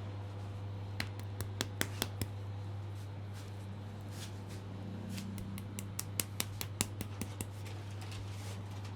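Two quick runs of sharp clicking taps from a head massage, about five a second, over a steady low hum.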